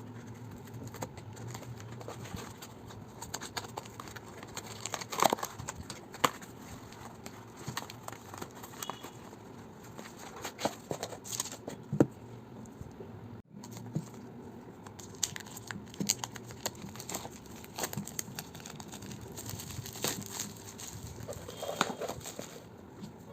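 Packaging being handled and opened: plastic and paper crinkling, with many scattered clicks and knocks.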